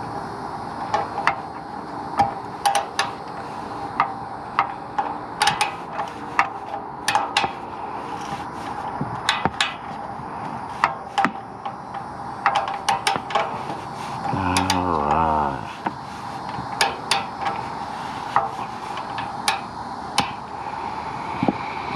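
Metal tool clicking and clinking in short irregular bursts as the bolts on a BMW 340i's exhaust valve bracket are tightened down in small turns.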